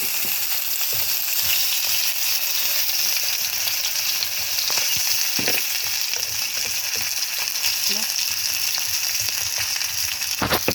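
Gentle surf washing over the sand, a steady fizzing hiss, with a few soft knocks, the loudest near the end.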